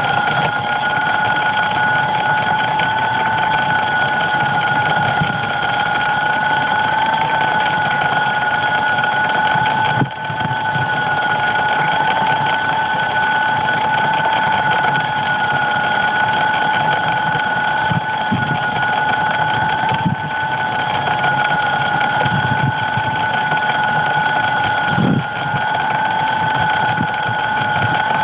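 Steady electric motor whine from a crashed DJI Phantom quadcopter lying still in grass: two held tones over a hiss that waver slightly now and then. A few brief ticks break in along the way.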